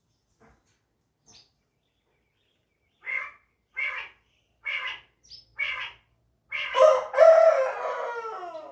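Bird calls: five short calls about a second apart, then a rooster crowing once, a long loud call that falls in pitch at its end.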